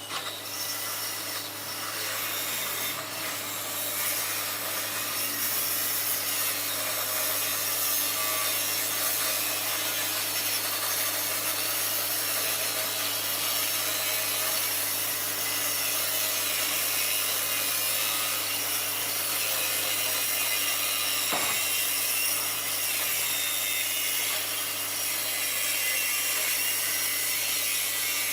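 Wood being worked by a power tool, an unbroken rasping noise over a steady motor hum.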